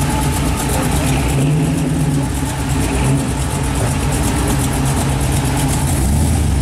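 1964 Chevrolet Impala engine running steadily at low speed as the car rolls slowly by.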